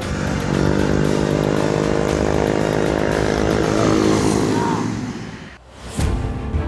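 A small engine running at steady, high revs with a buzzing drone, fading out about five seconds in. A sharp knock follows about a second later.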